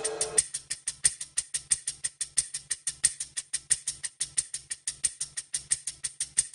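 Background music whose melody drops out about half a second in, leaving a fast, even percussion ticking at about seven ticks a second.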